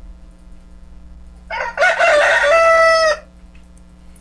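A recording of a rooster crowing once, starting about a second and a half in and ending on a held note.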